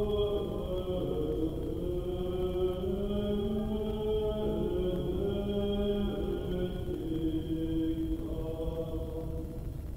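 Slow sung chant in a reverberant church: long held notes stepping from pitch to pitch over a steady low room rumble, dying away near the end.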